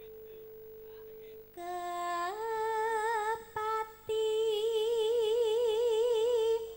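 A woman's voice singing long held notes without words: it slides up in pitch about two seconds in, breaks briefly, then holds a note with a wide, even vibrato, in the florid style of a Javanese sinden. A soft steady single tone comes before the voice enters.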